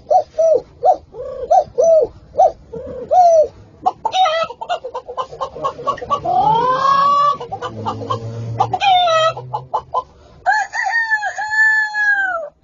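A man imitating chickens with his voice: a run of short clucks, then a jumble of calls with a rising squawk, and near the end long drawn-out crowing calls like a rooster.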